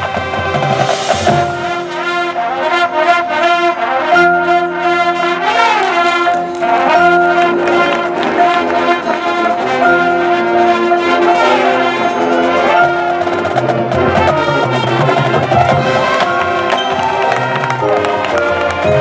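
High school marching band playing live on the field, the brass section of trumpets, trombones and sousaphones carrying held chords and moving melodic lines, with scattered percussion hits.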